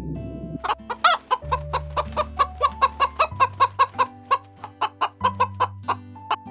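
An animal's rapid run of short, sharp calls, about four a second, starting under a second in, over background music with steady notes and a bass line.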